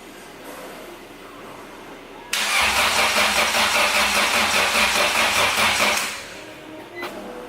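Acura Integra's starter cranking the engine for about four seconds with an even, rapid pulse, starting suddenly about two seconds in and stopping without the engine ever catching: a crank, no start, with no spark reaching the plugs.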